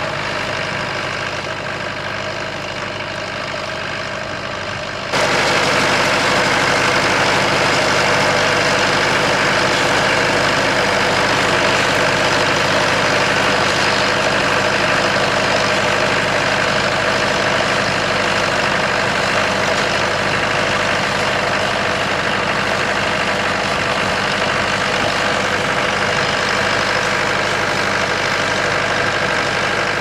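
IH McCormick 276 tractor's diesel engine running steadily under load as it pulls a two-furrow mounted plough. The sound steps up suddenly in loudness about five seconds in and stays steady after.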